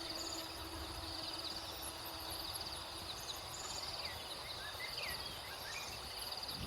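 Garden ambience with insects stridulating: repeated short, high-pitched pulsed trills. A few short bird chirps come about three to five seconds in.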